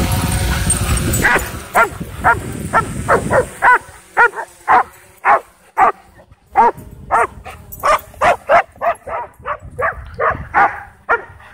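Excited, rapid barking from dogs worked up by a drone flying over them, about two or three barks a second, starting about a second in after a low rumble.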